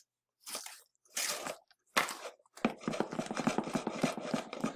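Wooden spoon stirring thick fudge in a stainless steel saucepan, scraping the bottom and sides. A few separate strokes come first, then from a bit past halfway a fast, continuous run of scraping.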